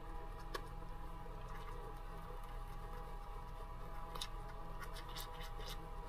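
Toothbrush scrubbing teeth in a few short bursts, mostly in the second half, over a steady hum.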